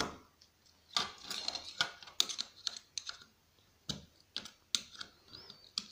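Irregular clicks and scrapes of the metal cover of a set-top box's RF box being pried and bent off its circuit board, with a short burst of rapid scratchy clicking about one to two seconds in.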